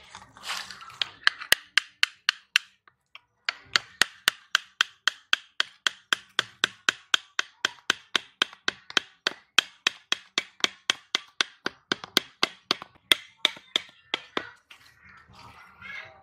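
Thin wooden stakes being driven into the ground by striking their tops with the back of a machete blade: a fast, steady run of sharp knocks, about four a second, with a short break about three seconds in, stopping shortly before the end.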